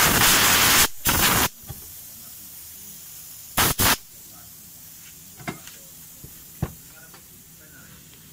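Compressed air from a compressor's blow gun blasting into the crankshaft position (CKP) sensor connector of a Honda Vario 110 to clean it out. One long hiss breaks off about a second in, a shorter blast follows at once, and two quick puffs come about four seconds in. A few faint clicks follow.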